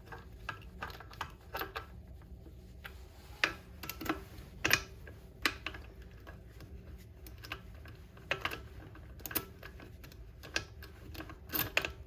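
Irregular light clicks and metal taps from a hand tool snugging bolts down on a transmission, with a handful of sharper clinks spread through.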